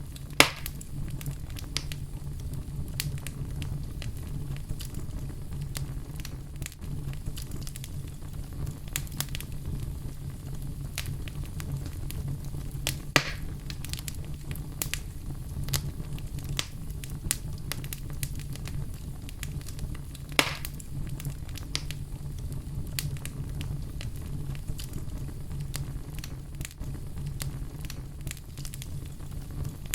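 Wood fire in a fireplace crackling, with many small irregular clicks and three sharper pops, the first about half a second in, one near the middle and one about two-thirds of the way through, over a steady low hum.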